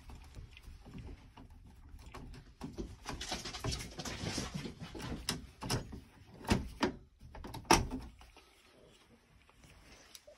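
Plastic-and-metal clicks, knocks and scraping as gloved hands work a main breaker loose from the bus of a 100-amp residential electrical panel, with the sharpest knock a little under eight seconds in.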